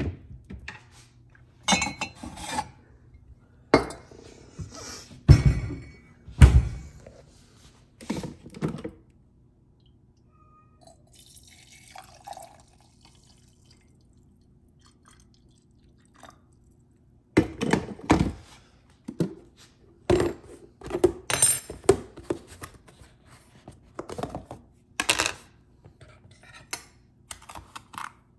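Dishes handled on a kitchen counter: a string of knocks and clinks as a ceramic mug is taken down and set out, then a quieter stretch with a faint pour of coffee from a glass carafe, then a dense run of spoon clinks and scrapes in a plastic tub near the end.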